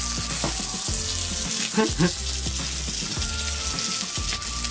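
Steady sizzling hiss of a heated knife blade pressed against corn kernels as they scorch and smoke, under background music with a pulsing beat.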